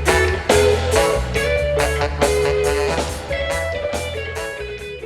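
Background music: a plucked guitar line over a steady bass, fading out toward the end.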